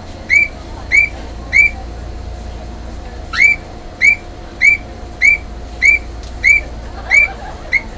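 A high, whistle-like chirp repeated about every 0.6 seconds, in two runs with a short pause about two seconds in. The first chirp of each run slides up into the tone. Underneath is a low steady hum.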